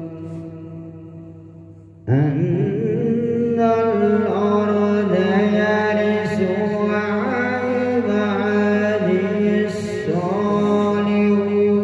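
A man's voice reciting the Quran in the melodic, drawn-out tajwid style, holding long notes with ornamented turns. One phrase fades away, then a new phrase starts loudly about two seconds in and carries on.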